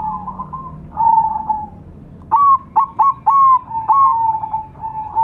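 Zebra doves (perkutut) cooing: bursts of short, clipped coos with a quick rise and a drawn-out fall. The busiest run of coos comes about two seconds in.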